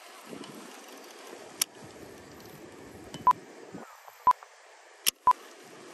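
A short, high electronic beep repeating once a second, starting about halfway through, over a low background rumble; two sharp clicks, one early and one near the end.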